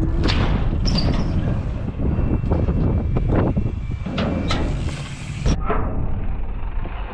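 Strong wind buffeting the microphone: a loud, steady low rumble with gusty rushing and scattered sharp rattles.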